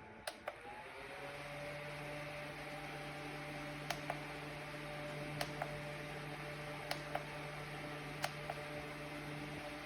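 Small battery-powered USB desk fan (ELZO 12000mAh) running with a steady motor hum; about a second in its pitch drops and settles as the speed changes. Several pairs of sharp clicks sound over it.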